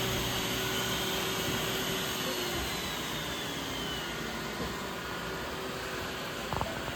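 Several robot vacuums running at once: a steady whirring hum of motors and brushes, with a faint falling whine midway and two light knocks near the end.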